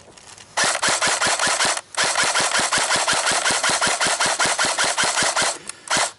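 Airsoft gun firing on full auto: two long rapid bursts, at about ten shots a second, with a short pause between them, then a couple of brief bursts near the end.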